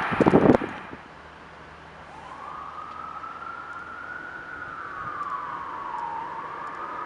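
The last rush of a passing train dies away within the first second. Then a distant emergency-vehicle siren wails in one slow rising and falling tone.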